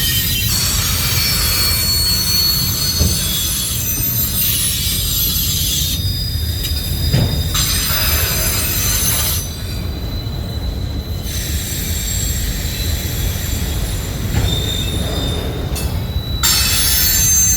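Freight train cars rolling past with their steel wheels squealing on the rails in several high, steady tones that drop out and return, over a low rolling rumble.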